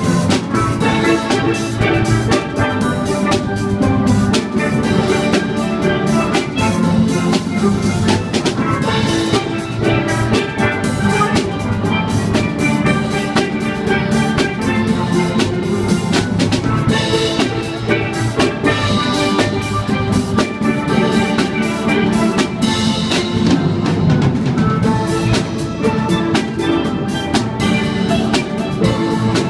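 Steel pan band playing a tune, with drums keeping the beat.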